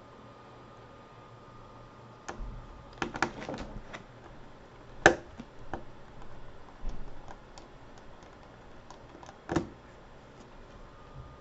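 Scattered small clicks and taps of a magnetic Phillips screwdriver working out the screws that hold a laptop's LCD brackets, with a cluster of clicks about three seconds in and a sharper knock about halfway through.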